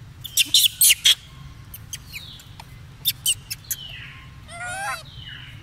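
Young macaque squealing and shrieking: a quick run of sharp, shrill squeaks in the first second and more about three seconds in, with falling squeals between and a wavering higher call near the end.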